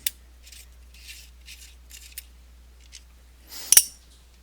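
An Allen wrench turning small bolts out of a paintball marker's grip frame: a sharp click, then a run of faint scraping turns, and a louder metallic clink with a short rattle near the end.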